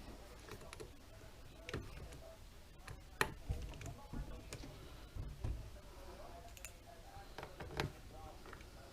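Scattered light clicks and taps of small screws and a tool being worked into a 1/14 scale RC trailer's wheel hubs, one sharper click about three seconds in.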